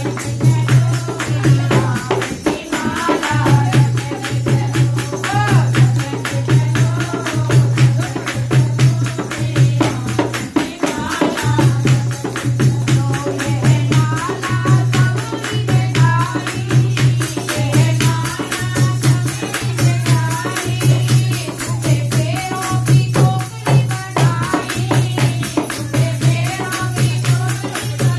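Women singing a Hindi devotional bhajan together to a dholak drum beating a steady rhythm, with the metal jingles of a hand-held clapper and hand claps on the beat. The drum drops out briefly twice, about two seconds in and again near the middle.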